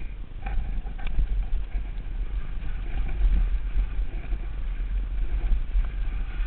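Mountain bike descending a rocky dirt trail, heard from a helmet-mounted camera: a steady low rumble of wind buffeting and tyres over the dirt, with a couple of light clicks from the bike about half a second and a second in.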